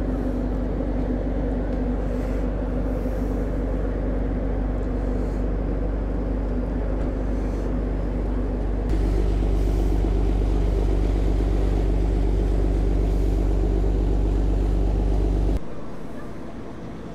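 Car ferry's engines running with a steady low hum on the car deck. The hum grows louder about nine seconds in, then drops away sharply near the end.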